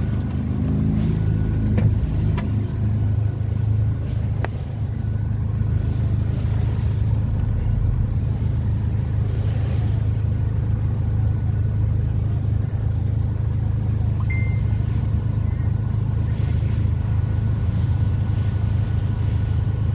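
A vehicle engine running steadily at idle: a low, even hum with a few faint clicks.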